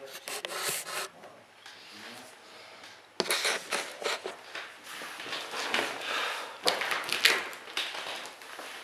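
Handling noise close to the microphone: rustling, scraping and small knocks as things are moved about, sparse at first and busier after a sharp click about three seconds in.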